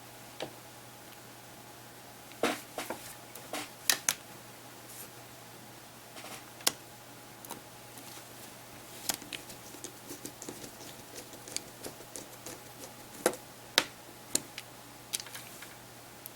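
Scattered sharp clicks and light taps of small plastic and metal parts and tools being handled while a handheld media player is worked on, over a faint steady low hum.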